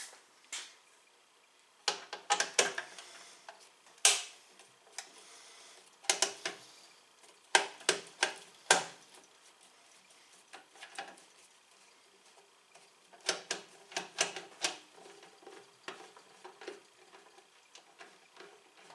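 Clusters of sharp metal clicks and clatter from hand tools and small screws being handled, with quiet gaps between.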